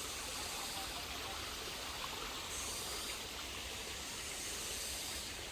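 Hill stream water pouring down a small waterfall, a steady rush of water.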